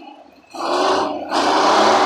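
Blown GM Detroit Diesel two-stroke inline-six engine of a 1954 LeTourneau-Westinghouse Tournarocker being revved. The sound falls away at the start, comes back up about half a second in, dips briefly just past a second, and then runs loud to the end.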